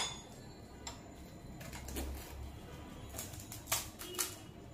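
Crisp, hollow fuchka (pani puri) shells cracking as fingers poke them open and teeth crunch them: one sharp crack at the start, then scattered small crackles and clicks.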